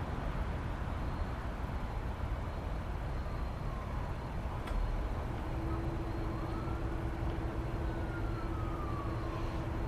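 Steady outdoor background rumble with a faint distant siren wailing up and down over it, and a single sharp click just before halfway.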